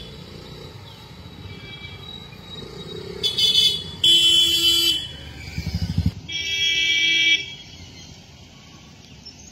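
Road traffic with vehicle horns honking three times, the loudest about four seconds in and the longest, just over a second, near the end, over the low hum of passing vehicles.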